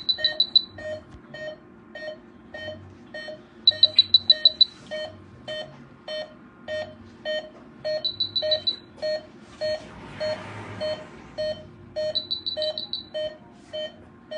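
Veterinary anesthesia patient monitor beeping in time with an anesthetized wolf's pulse, about two steady beeps a second. A quicker, higher run of beeps cuts in about every four seconds.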